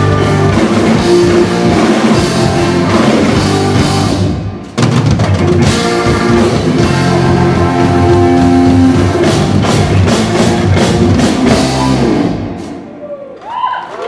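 Live band of drum kit, electric bass and keyboard playing a fast rock piece, with a sudden stop and re-entry about a third of the way in. The band winds down and stops shortly before the end, as the audience begins to cheer.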